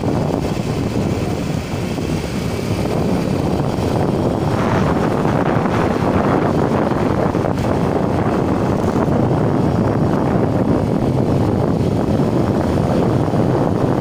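Wind buffeting a helmet headset microphone on a moving motorcycle: a loud, steady rushing noise that covers the engine, growing a little louder and brighter about four and a half seconds in.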